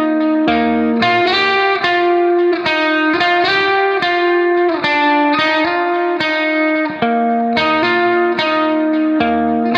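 Instrumental background music: a guitar with effects playing a melody of held notes that change about twice a second.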